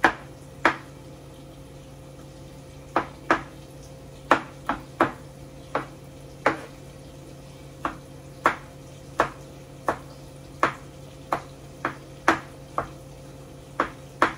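Kitchen knife chopping garlic on a cutting board: sharp single knocks at an uneven pace, about one or two a second, with a short pause near the start, over a steady low hum.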